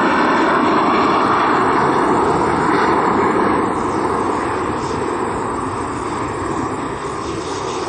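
Jet engines of a departing Boeing 737, CFM56-7B turbofans at climb power, making a steady engine noise that fades a little from about halfway as the airliner climbs away.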